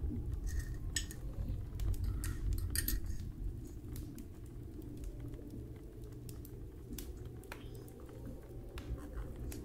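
A spoon clinking against a ceramic mug as the mug is handled, a few light clinks in the first few seconds and another later, over a low steady hum.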